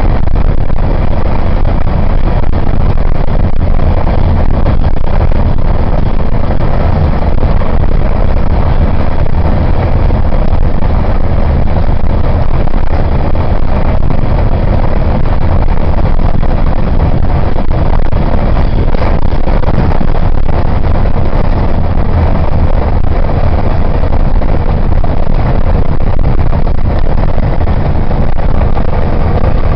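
Loud, steady rumble of a vehicle driving at road speed, engine and tyre noise blending with wind noise, with no break or change.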